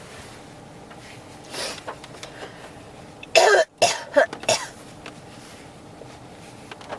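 A person coughing: a run of about four coughs in quick succession about halfway through.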